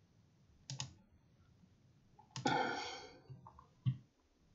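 Faint clicks of a computer mouse: a quick double click about three-quarters of a second in, a longer, louder rattle around two and a half seconds, and a single click near the end.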